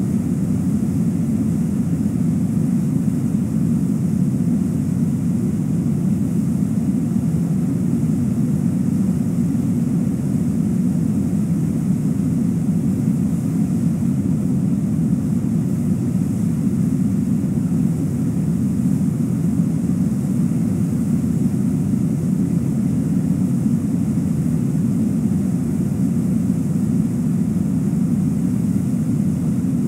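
Steady, even low rushing noise that holds the same level throughout, with no distinct chewing, calls or knocks standing out.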